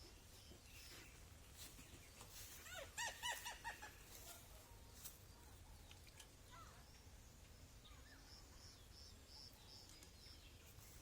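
Faint bird calls: a quick run of about six short pitched calls about three seconds in, then a series of short high chirps near the end.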